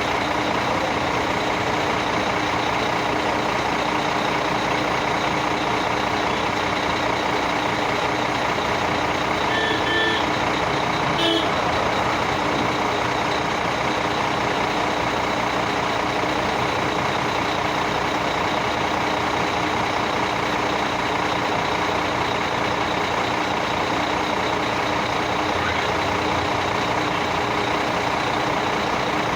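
Heavy vehicle engine running steadily without change in pitch, with a single short click about eleven seconds in.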